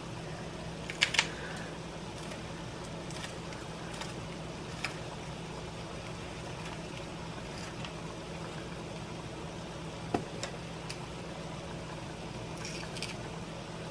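Kitchen scissors snipping fresh hot peppers, a handful of sharp snips spaced out over several seconds, over a steady low hum and hiss.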